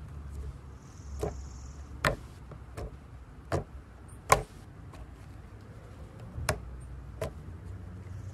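A hand squeezing and pressing soft white slime, giving sharp clicking pops at uneven intervals, about seven in all, the loudest a little past the middle, over a low steady hum.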